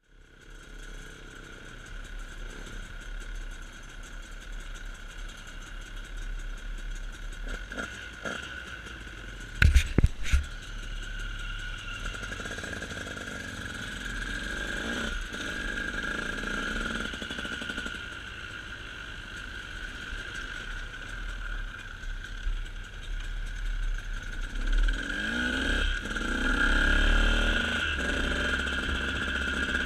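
A motor vehicle's engine running steadily, rising and falling in pitch now and then, with a few sharp, loud knocks about ten seconds in.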